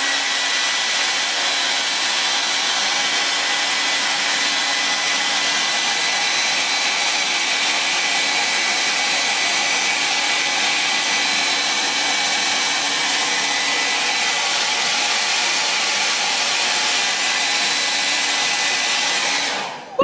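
Revlon hand-held hair dryer switched on and running steadily, a rush of air with a faint whine, blowing on a metal eyelash curler to heat it; it is switched off near the end and winds down.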